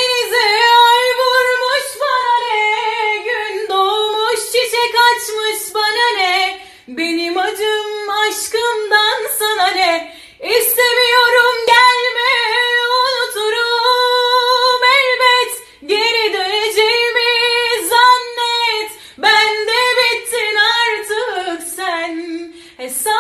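A high female voice singing unaccompanied, a wavering melody full of ornaments, in long phrases with short breaks between them.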